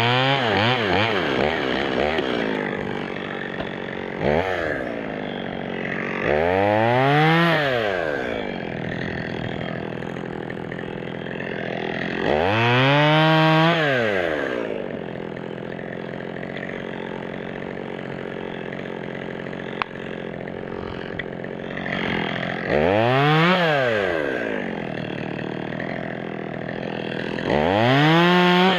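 Two-stroke chainsaw running between idle and full throttle. It revs up and drops back about five times, each rise and fall lasting a second or two.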